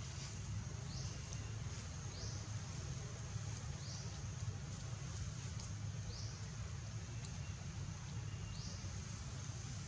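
Outdoor ambience: a steady high buzz and a short rising high call repeated every second or two, over a low steady rumble.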